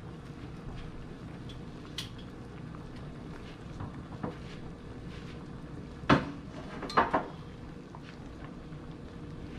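Kitchenware clattering at the stove, a few sharp metal knocks with the loudest about six and seven seconds in, over the steady sound of a pot of pasta water at a rolling boil.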